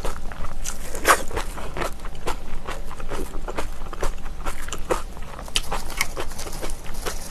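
Chewing of crunchy kimchi: irregular wet crunches and clicks, several a second, the loudest about a second in.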